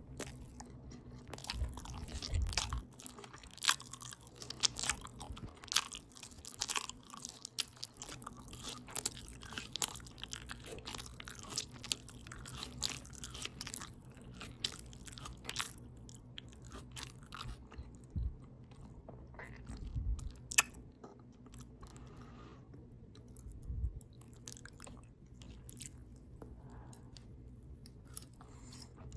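Open-mouth chewing of a potato taco bowl close to the microphone: a steady run of wet clicks and crunches, thick at first and sparser after about halfway.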